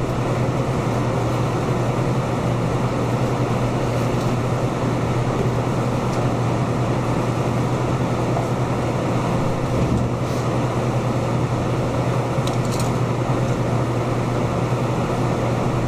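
Steady, loud hum with an even rushing noise from a room's air-handling machinery, with a faint knock about ten seconds in.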